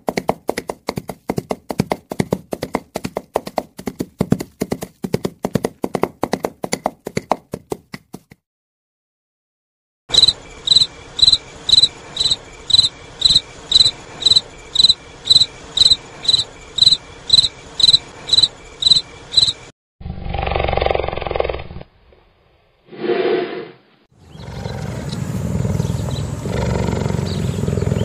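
Rapid, regular hoofbeats of a running horse, then a field cricket chirping steadily, about two and a half high chirps a second. After that come two short, harsh animal calls and a continuous low, rough growl.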